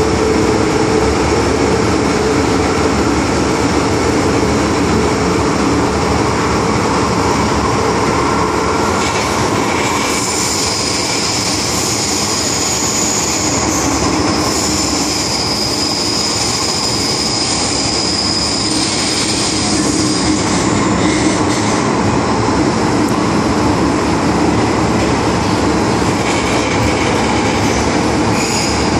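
Hong Kong MTR M-Train, a Metro-Cammell electric multiple unit, running at speed through a tunnel, heard inside the passenger car as a steady loud rumble of wheels on rail. About ten seconds in, a high-pitched wheel squeal rises over the rumble and lasts around ten seconds.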